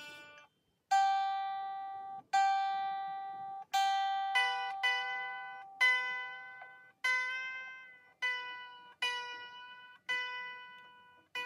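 Baritone ukulele strings plucked one at a time while the instrument is being tuned: about a dozen single notes, each ringing out and fading, with the same note struck several times in a row before moving to another.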